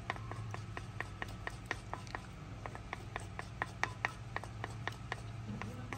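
Wooden spoon beating eggs in a small terracotta bowl, clicking against the clay about four to five times a second in an even rhythm, over a steady low hum.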